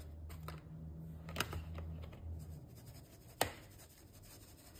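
Plastic mesh sieve shaken and knocked over a mixing bowl to sift baking powder into flour: faint rustling with a few light knocks, the sharpest about three and a half seconds in.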